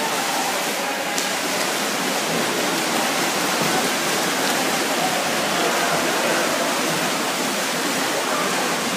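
Several swimmers splashing with freestyle kicks and arm strokes in a race, a steady, dense wash of churning water.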